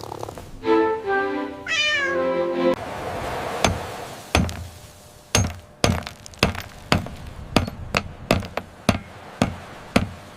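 A cat meows with a rising cry about a second in. Then come sharp, evenly spaced knocks, about two a second, over background music.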